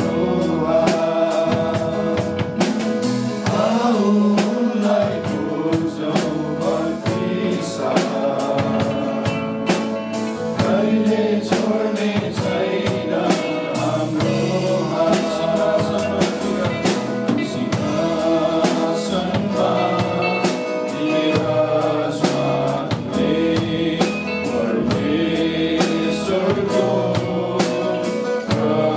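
Live worship band playing a Nepali Christian hymn: several voices singing together over a drum kit keeping a steady beat and guitar accompaniment.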